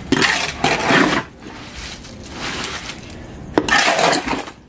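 Square shovel scraping and chopping through wet concrete mix in a wheelbarrow tub: a gritty scrape in the first second, quieter working, then another scraping stroke near the end.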